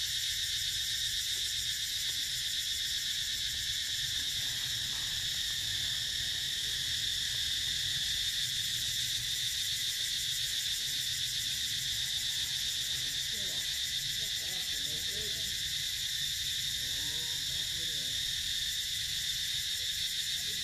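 Steady high-pitched chorus of insects, a continuous shrill buzz with a fast pulse, over a low rumble. Faint wavering calls come in about two-thirds of the way through.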